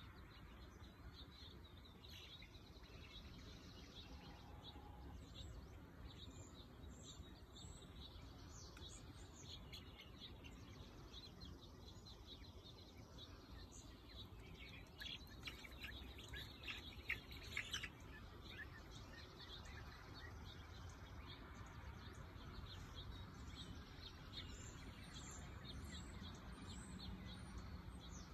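Faint, high bird chirps and peeps, on and off throughout, busiest and loudest a little past halfway.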